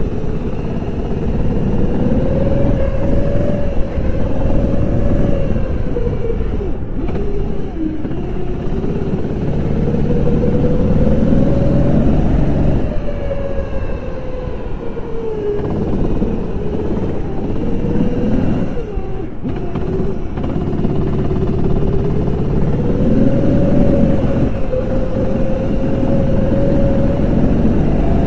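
Go-kart engine running at racing speed, close up from the kart itself. Its pitch rises along the straights and falls back each time the kart slows for a corner, several times over.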